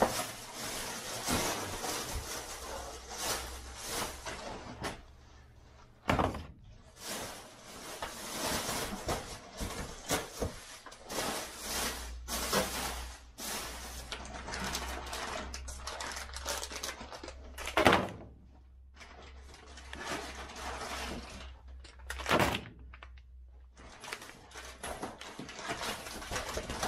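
Cardboard boxes and packing material being handled and opened: rustling and scraping with scattered knocks, and one sharp, louder knock about eighteen seconds in.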